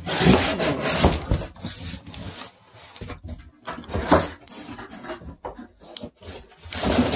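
Cardboard box and packaging being slid and handled, with irregular scraping and rustling that is loudest in the first second and again about four seconds in.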